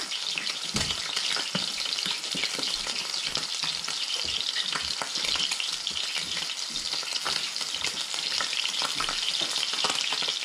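Trout and bass fillets frying in oil in a stainless steel skillet, a steady sizzle, with irregular light knocks of a dull knife slicing a tomato on a plastic cutting board.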